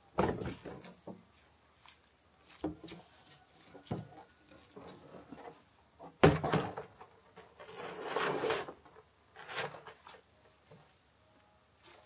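Hollow knocks and scrapes of large cut-open plastic barrels being tipped, dragged and set down on the ground. There are several separate thumps, the loudest about six seconds in, and a longer scrape about eight seconds in.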